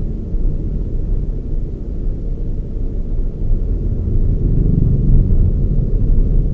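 Toyota Raize on the move: a steady low rumble of engine and road noise, swelling slightly a little past the middle.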